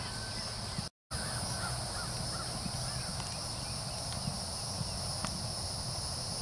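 Soft hoofbeats of a horse cantering on grass under a steady high-pitched drone, with birds calling. The sound drops out briefly about a second in.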